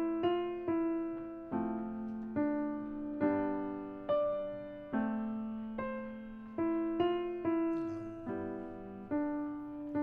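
Piano playing a slow, lyrical passage: single notes and chords struck about once a second and left to ring and fade.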